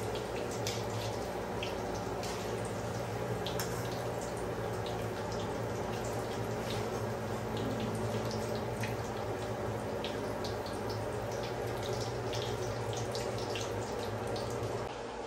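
Bread balls deep-frying in hot oil in a wok: steady sizzling with scattered crackling pops, over a steady low hum.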